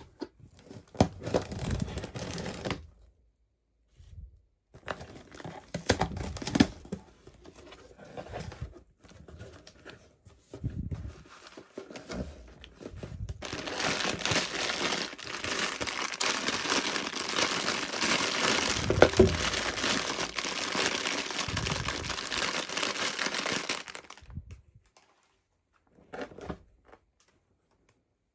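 Toy packaging being crinkled and torn open by hand: short bursts of rustling at first, then about ten seconds of continuous crinkling from about halfway in, with a few light clicks near the end.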